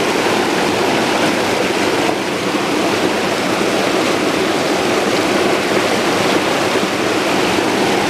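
Mountain stream rushing over boulders in a small rapid: a loud, steady noise of white water.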